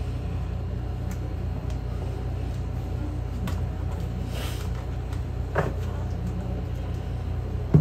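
Tarot cards being cut and laid out on a cloth-covered table: a few faint taps and a brief rustle of cards sliding, over a steady low room hum. A sharper knock comes near the end.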